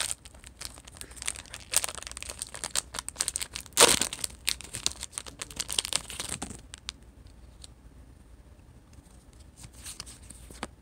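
Shiny sticker-pack wrapper crinkling and tearing as it is pulled open by hand. The loudest crackle comes about four seconds in. The crinkling stops about two-thirds of the way through, leaving only faint handling clicks.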